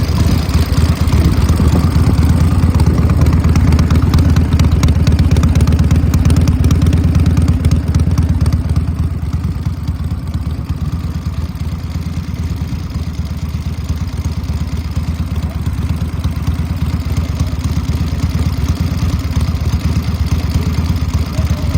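A motorcycle engine idling steadily and loudly. It drops somewhat in level about nine seconds in.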